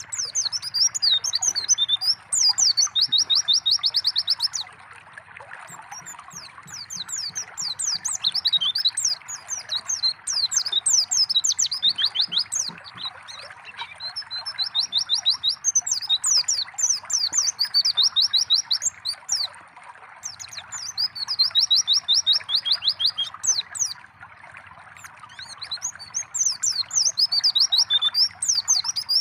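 A white-eye (pleci) singing bouts of high, fast chattering song with rapid repeated-note trills, over steady trickling water. The song drops away for a few seconds at a time between bouts, while the water runs on.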